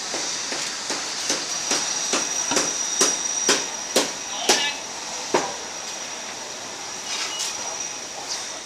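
Butcher's cleaver chopping meat on a block: sharp strokes about two a second, growing harder toward the middle and stopping about two thirds of the way through.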